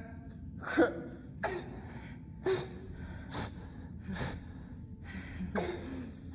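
A man gasping and choking as he is strangled, a series of strained, rasping breaths about one a second.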